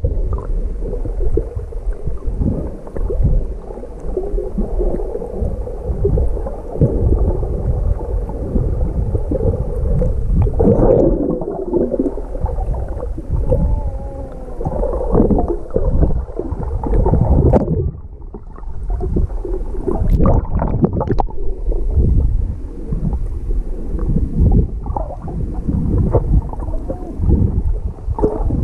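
Muffled underwater sound picked up by a submerged GoPro: low rumbling and sloshing water with irregular knocks and gurgles as the snorkeler swims, and a faint wavering tone in the middle.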